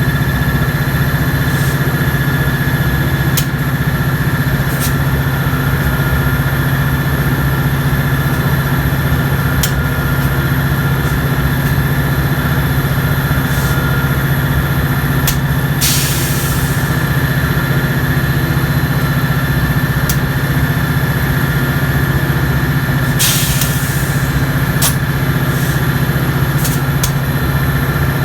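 Diesel locomotive idling steadily at a constant pitch, with two short bursts of air hiss partway through.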